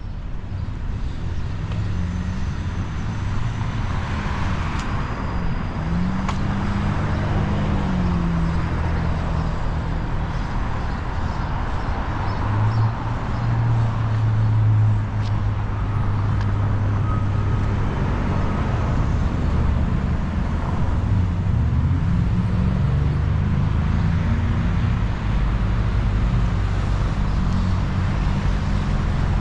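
Downtown street traffic: car and truck engines running and passing, their pitch rising and falling, with one heavier engine loudest about twelve to fifteen seconds in.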